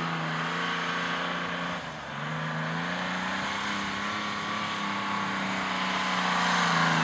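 Off-road 4x4's engine running under load at steady revs. The note dips briefly about two seconds in, then climbs slowly.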